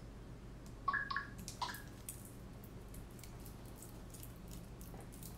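Faint clicks and taps of small hardware and tools being handled while a small FPV quadcopter frame is screwed back together, with a few short, ringing clinks about a second in.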